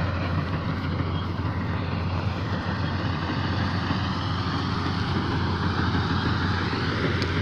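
K-BOS 880 combine harvester running steadily, a constant low engine hum under the dense rattle and whir of its working machinery.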